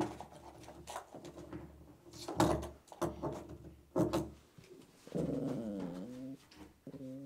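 Toy poodle grumbling and growling in several short, unthreatening sounds; the longest, about five seconds in, slides down in pitch. A couple of sharp clicks come between them.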